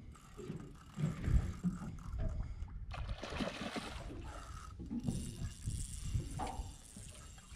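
Fishing reel ratcheting and grinding as a fish is fought on a bent rod, with knocks and water noise from the boat.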